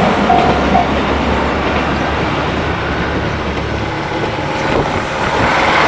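Level-crossing alarm ringing its last strokes and stopping just under a second in, then the steady low rumble of the passing limited express train dying away. A road vehicle comes up near the end.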